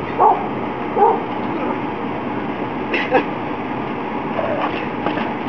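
Dog giving a few short yips and barks while tugging at a rubber tyre, over a steady background hiss.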